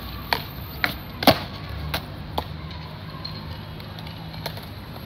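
Skateboard on smooth concrete: several sharp clacks of the board being popped and landed, the loudest just over a second in, then the low rumble of its wheels rolling.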